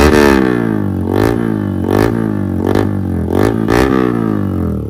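Yamaha R15 V4's single-cylinder engine revved repeatedly through an aftermarket slip-on exhaust with its dB killer removed. There are about six quick blips, each rising sharply and falling back.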